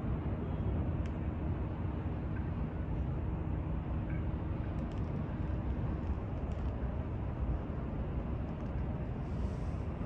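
Steady low rumble of outdoor ambience on the open upper deck of a cruise ship, with a faint steady machinery hum under it.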